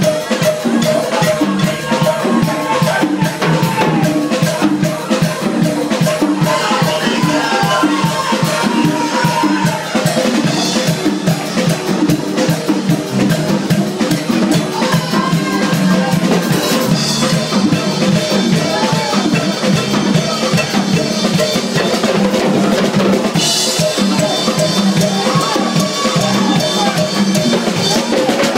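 Live worship band playing a fast rhythm on congas and drums, with a woman singing into a microphone over the beat.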